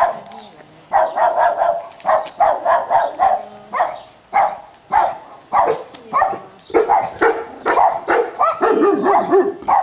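Dog barking loudly and rapidly, about three barks a second without a break, with a quick run of lower barks near the end.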